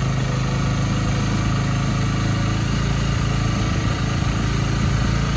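Honda Rebel 300's single-cylinder engine running steadily, held at raised revs after being refilled with fresh oil.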